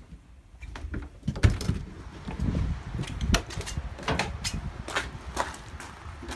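Travel trailer's entry door opening and footsteps going down onto gravel: a run of irregular clunks and steps, the sharpest knock about a second and a half in.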